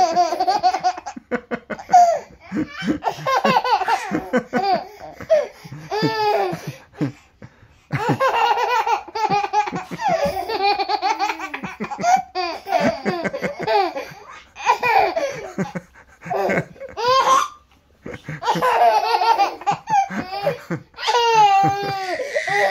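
Baby laughing in long repeated fits of belly laughter, with short pauses between fits.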